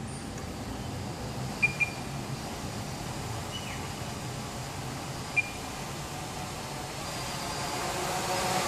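Short high electronic beeps, two in quick succession about one and a half seconds in and one more a few seconds later, over a steady background hum. Near the end a whir of several tones begins and grows louder: the Quanum Venture quadcopter's brushless motors spinning up for takeoff.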